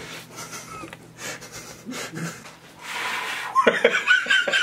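Light handling clicks, then a long breathy hiss. About three and a half seconds in, a person bursts into laughter in quick breathy pulses.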